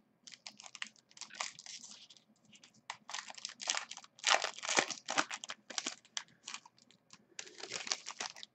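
Foil wrapper of a 2011 Bowman Platinum baseball card pack crinkling and tearing as it is pulled open by hand, in a run of irregular crackles that is loudest about halfway through.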